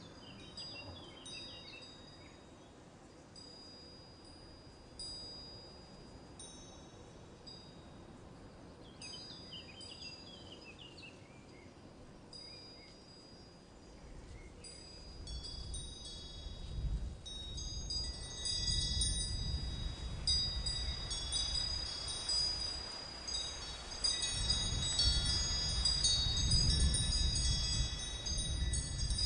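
Wind chimes ringing: a few scattered high notes at first, then many overlapping notes from about halfway on, as a low rumbling noise grows louder beneath them.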